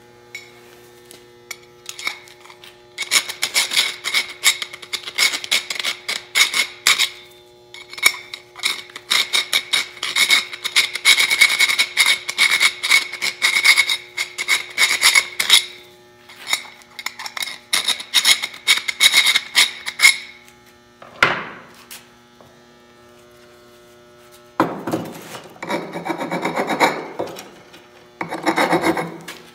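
A hand file rasping in quick strokes against the end of a metal pipe, in long runs with short pauses. A single knock comes partway through, and near the end the scraping turns lower and coarser. A faint steady hum runs underneath.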